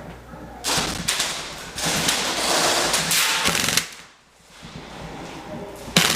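Airsoft guns firing rapid full-auto strings for about three seconds, then a single sharp snap near the end.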